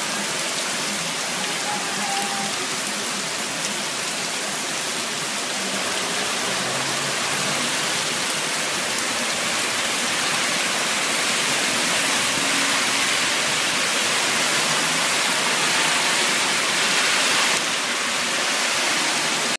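Heavy rain pouring onto a paved street: a dense, steady hiss that grows slightly louder over the course of it.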